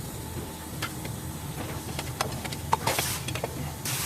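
Engine running steadily with a low hum, with scattered light clicks of tools on metal and a short hiss about three seconds in.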